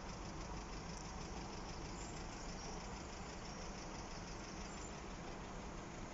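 Steady low rumble of idling engines, with no change in level.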